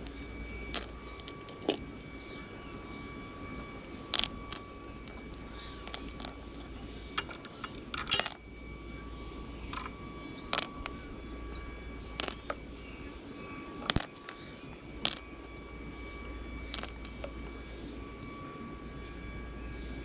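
Metal-backed motorcycle disc brake pads clicking and clinking as they are handled and set down on concrete, about a dozen sharp separate clicks spread irregularly through, over a faint steady hum.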